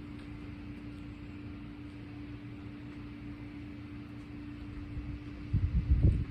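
Pressure washer's engine and pump running steadily with an even hum. About five and a half seconds in comes a brief burst of low, uneven thumps.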